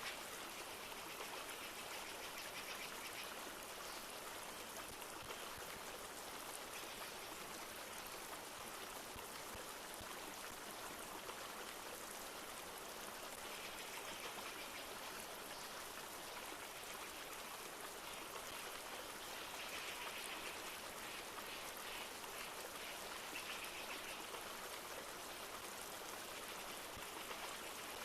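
A river flowing steadily, a continuous rushing of water, with light rain pattering over it.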